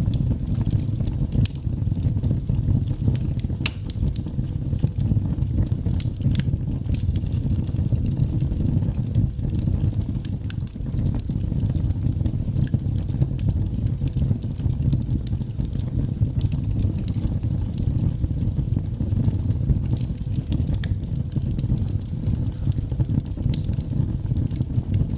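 Fire crackling, with many irregular sharp pops over a steady low rumble.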